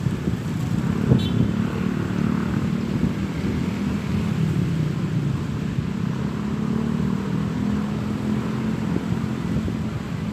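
Steady low rumble of motor vehicles running, like passing cars and motorbikes, with a short click about a second in.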